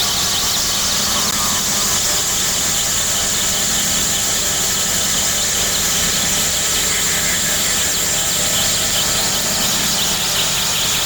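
Steady electronic space-sound drone, presented as a planet's magnetosphere made audible: a dense hiss with a steady high whistling tone above it and a low hum beneath.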